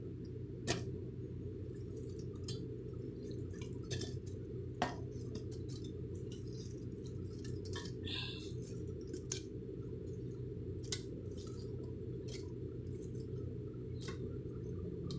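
Watermelon chunks being scooped into a stainless-steel mixer jar: scattered soft knocks and clinks of fruit and a plastic scoop against the steel, over a steady low hum.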